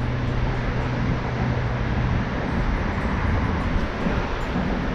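Road traffic on a concrete road bridge: a steady rumble and tyre noise, with a low engine hum that fades about two seconds in.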